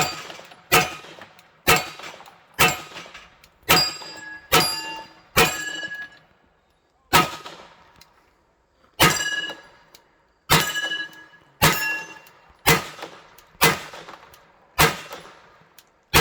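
A string of pistol shots striking steel plates, about fifteen hits, each a sharp crack followed by a clanging ring of the steel that fades within a second. They come roughly one a second, with two longer pauses of nearly two seconds in the middle.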